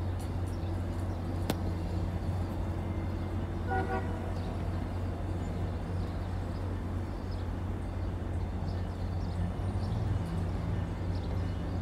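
A short, distant horn toot about four seconds in, over a steady low rumble.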